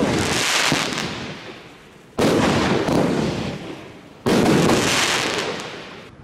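Super Power "Burst Open" firework battery firing its aerial shells. The shots come about two seconds apart, each a sudden bang that fades out over about two seconds.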